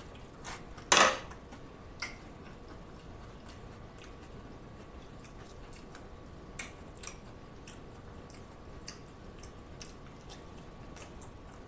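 Close-miked eating of roasted Cornish game hen: a sharp clink of cutlery against dishware about a second in, then faint mouth clicks and smacks as the meat is chewed and picked off by hand, with a couple of louder clicks a little past the middle.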